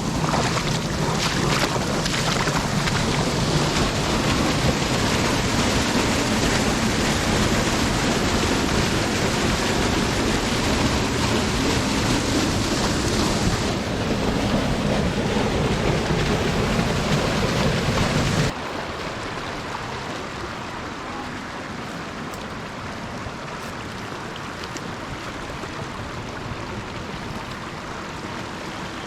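Steady rush of flowing creek water. About two-thirds of the way in it drops suddenly to a quieter, softer rush.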